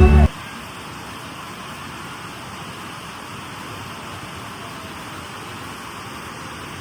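Steady, even hiss of water, from rain or rushing water, with no other distinct sound. It starts when the music cuts out and ends as the music returns near the end.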